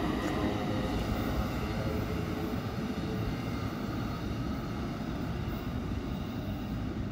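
Commuter train of Bombardier bilevel coaches pulling away down the line, its low rumble slowly fading as it recedes.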